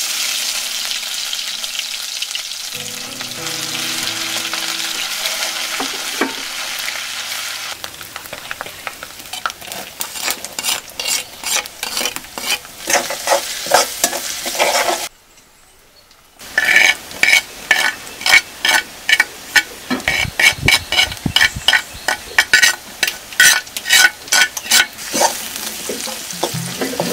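Crushed ginger and garlic sizzling steadily in hot coconut oil in a metal wok. Then a metal spoon scrapes the wok in quick strokes as chopped onions and green chillies are stir-fried in the sizzling oil, about two to three strokes a second. The sound drops out for about a second just past the middle.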